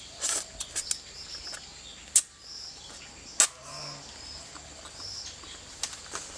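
Small birds chirping in short repeated calls over a steady outdoor hiss, broken by several sharp clicks or knocks, two of them loud, a little after two and three seconds in.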